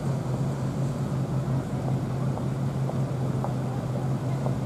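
Street traffic: a steady low engine hum from cars and utes idling in a queue.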